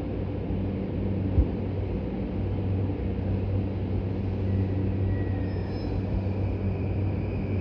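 E233-1000 series electric commuter train pulling slowly away from the platform: a steady low rumble and hum, with one sharp knock about a second and a half in.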